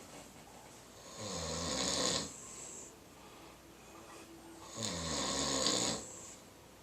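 A napping beagle snoring: two long snores about three and a half seconds apart, each falling in pitch and trailing off in a breathy hiss.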